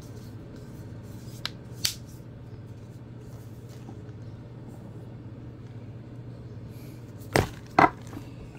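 Handling noise from a Nokia C10 smartphone being turned over in the hands: two light clicks, then two sharp knocks about half a second apart near the end, over a steady low hum.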